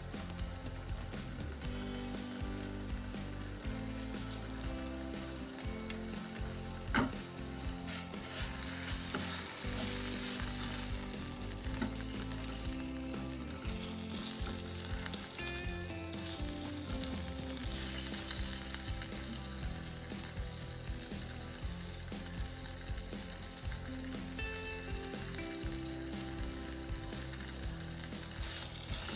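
Chicken sizzling in hot oil and glaze in a frying pan, with a spatula pressing and moving it. A sharp click about seven seconds in, and the sizzle gets louder soon after.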